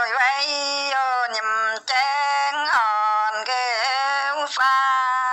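A woman singing long held notes that bend and waver in pitch, in a few phrases with short breaks between them.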